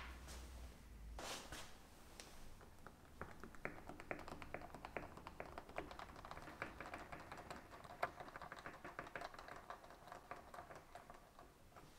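Light, rapid, irregular clicking and tapping of small hard parts being handled, sparse at first, thickening from about three seconds in and dying away just before the end.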